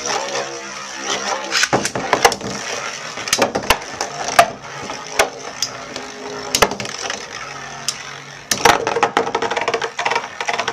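Two metal Beyblade spinning tops, Lightning L-Drago and Storm Pegasus, whirring in a stadium and repeatedly clashing with sharp clicks and knocks, getting louder and busier near the end.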